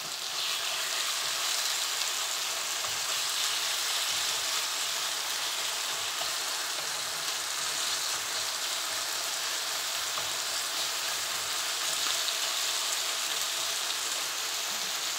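Chicken pieces, onion and garlic sizzling steadily in hot oil in a wok over high heat, the chicken searing and browning.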